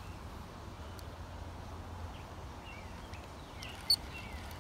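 Outdoor pond-side ambience: a steady low hum and background noise, with faint short bird chirps scattered through. There is one short sharp click about four seconds in.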